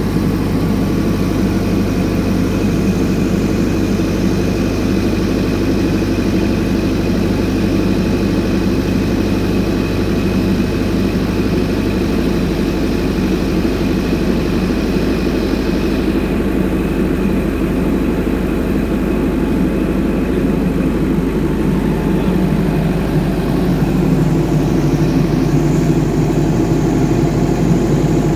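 FAW 16 kVA diesel generator set with a Perkins engine running steadily at constant speed inside its sound-proof canopy, just after being started for a test run.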